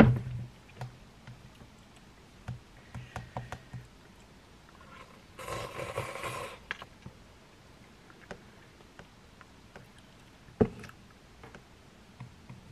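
Desk handling sounds: a knock as an iPad's folio cover is flipped open, then scattered light taps and clicks, a rustling swish lasting about a second around the middle, and another sharp knock about ten and a half seconds in.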